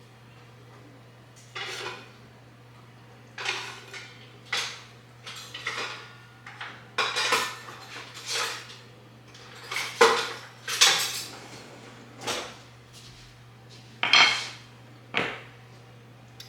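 Kitchen dishes and utensils clattering: a dozen or so separate clinks and knocks of bowls, pans and utensils being handled and set down, at an uneven pace.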